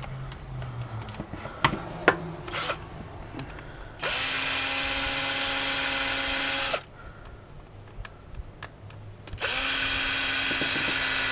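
Cordless drill/driver running in two steady runs of about three seconds each, backing screws out of a plastic power-tool housing. The first run starts about four seconds in, after some clicks and rattles of handling, and the second starts near the end.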